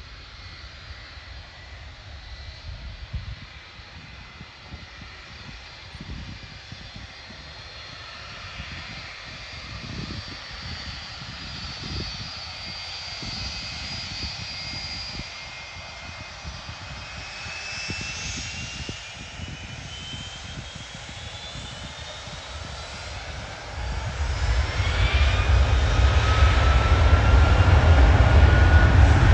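Jet aircraft engines: a high whine and a low rumble build slowly, then several whining tones climb in pitch. About 24 s in, the sound swells suddenly into a loud, deep rumble.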